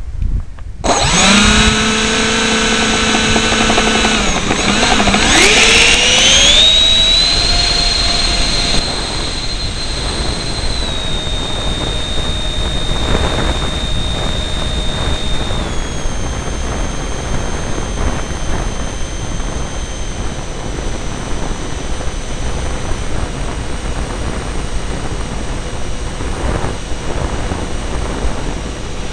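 Twin 70 mm electric ducted fans of an RC F-22 model jet spinning up about a second in, rising sharply in pitch a few seconds later to a loud high whine at full throttle for the takeoff, then stepping down in pitch twice as the throttle is eased in the climb. Heard close from a camera mounted on the model, over a steady rush of noise.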